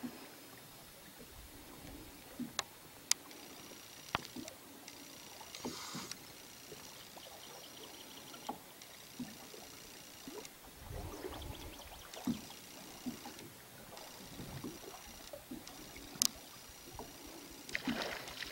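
Quiet lakeside sound from a small boat: soft water lapping against the hull, with a few sharp clicks and small knocks scattered through it.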